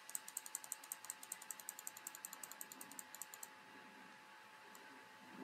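A rapid, even run of light clicks, about eight a second, the kind made at a computer keyboard or mouse, stopping about three and a half seconds in; after that only a faint steady hum.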